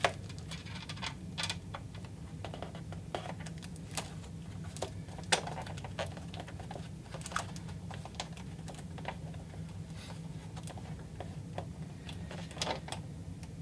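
Irregular light clicks and taps from washers and nuts being handled and fitted onto the studs of a cardboard template, with hands pressing on the cardboard, over a steady low hum.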